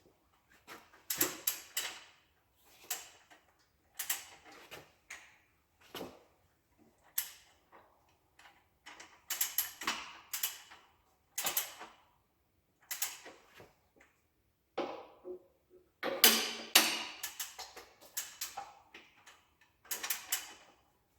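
Ratchet of a torque wrench clicking in short strokes, over and over with brief pauses, as the main bearing cap bolts of a Perkins 236 diesel engine are tightened to 150 foot-pounds.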